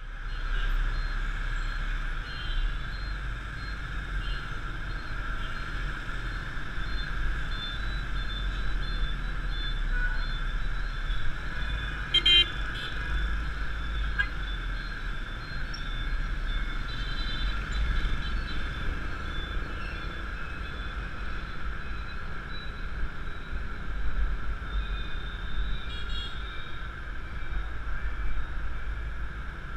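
Motorbike traffic heard from a riding scooter: a steady low rumble of engines and road noise, with horns tooting now and then and one short sharp sound about twelve seconds in.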